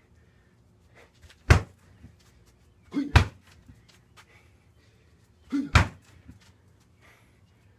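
Heavy punching bag taking knee strikes: five heavy thuds, one about a second and a half in, then two quick pairs about three and five and a half seconds in.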